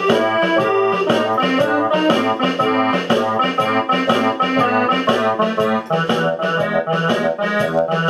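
Instrumental background music: reedy keyboard or accordion-like notes over a bouncing bass line, played to a quick steady beat.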